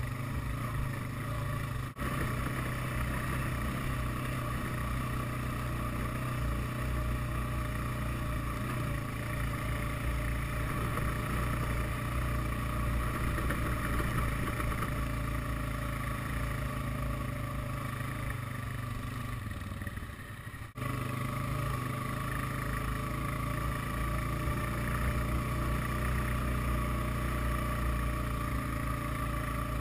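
ATV engine running steadily while the quad is ridden over sand and tundra. The sound dips out briefly twice, about two seconds in and about two-thirds of the way through.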